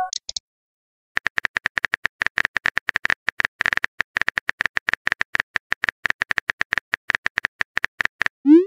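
Rapid phone-keyboard typing clicks, a quick run of short taps at roughly eight a second, starting about a second in. Right at the end comes a short rising whoosh of a message being sent.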